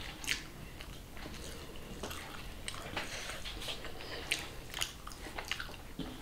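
Fingers mashing and mixing rice with egg and potato on a metal plate: soft wet squishing with scattered small clicks.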